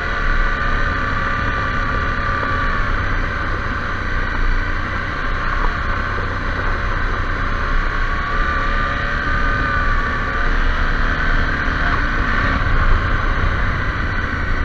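KTM 790 Adventure R's parallel-twin engine running on the move, its note rising and falling gently, with steady wind rumble on the camera microphone.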